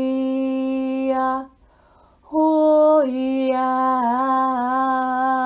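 A woman's voice toning wordless light language: a long steady held note that stops about a second and a half in. After a short pause comes a second held note that starts a little higher, steps down, wavers slightly and ends near the end.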